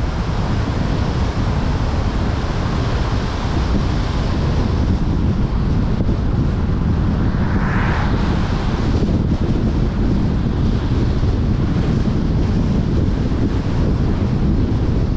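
Steady wind rumble on the microphone mixed with tyre and road noise from a car driving at road speed. About halfway through, a brief swell of hiss rises and falls.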